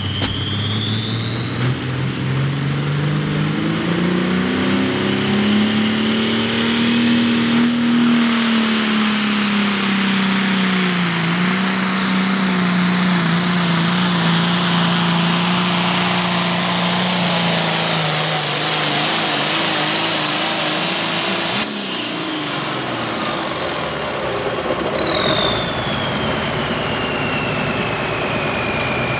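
Super Pro Farm pulling tractor's turbocharged 540-cubic-inch diesel engine at full throttle pulling the weight-transfer sled. Engine pitch climbs over the first several seconds with a rising turbo whistle, then holds under load, sagging slightly midway. About two-thirds of the way in, the throttle cuts off abruptly and the turbo whine winds down in a long falling whistle as the run ends.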